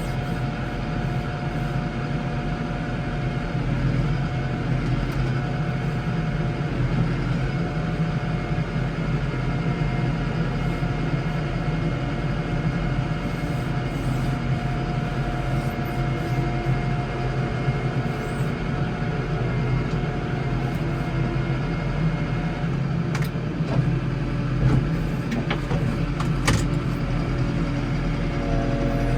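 Case 115U garden tractor engine running steadily under snowplowing work. A couple of sharp knocks come near the end.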